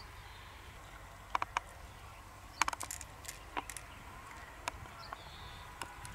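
Irregular sharp clicks and taps of hard objects, a cluster of them near the middle, over a low steady rumble.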